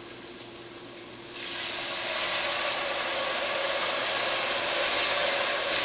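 White wine poured into a hot pan of toasting arborio rice, hissing and sizzling into steam; the hiss starts suddenly about a second in and holds steady.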